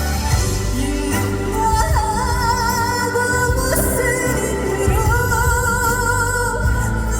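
Live trot ballad music: band accompaniment with a high melody line that wavers with vibrato over a steady low backing.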